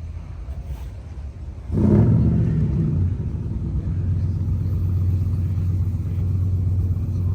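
A car engine running with a low, steady rumble that gets much louder about two seconds in.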